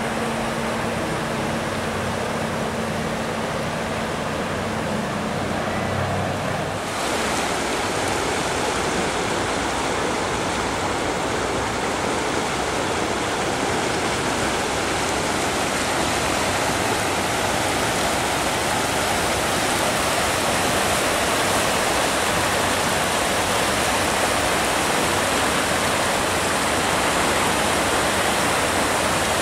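Fast-flowing Barwon River floodwater rushing and churning in a steady wash of noise. A low steady hum sits under it for the first seven seconds or so, then stops.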